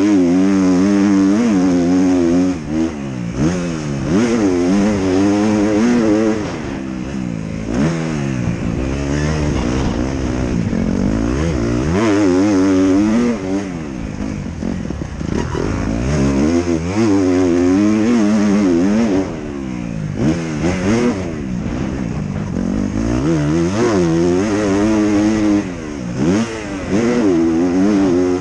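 Motocross bike engine under hard riding, revving up and dropping back again and again as the rider works the throttle and gears, with brief dips where the throttle is shut off.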